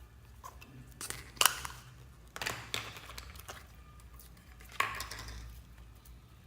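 Hands squishing and folding slime, with crackling squelches and pops from trapped air, in three bursts: about one, two and a half, and five seconds in.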